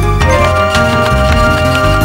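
Instrumental background score music: a held melody line over a bass line that moves from note to note, with light percussive ticks.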